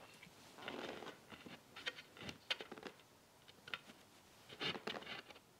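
Faint pencil strokes scratching marks onto a board, in short irregular scrapes with a few light clicks from the board being handled.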